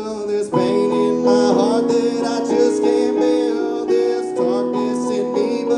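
Male voice singing a slow ballad over sustained chords played on a Yamaha digital piano.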